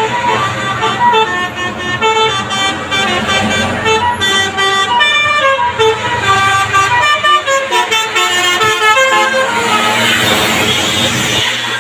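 A bus's multi-tone telolet 'basuri' horn playing a fast melody of short stepping notes. A noisy rush takes over near the end.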